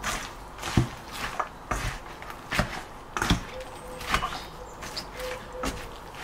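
A spatula scraping and knocking against a stainless steel mixing bowl as shredded vegetables are tossed through flour, in strokes about once a second.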